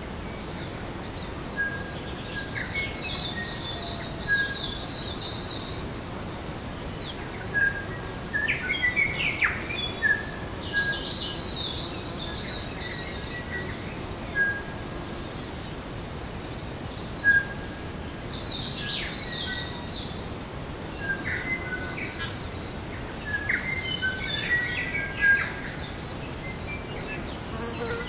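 Several birds singing: repeated short whistled notes and chirps, and every several seconds a dense, high trill. Under them runs a steady low hum of bees buzzing.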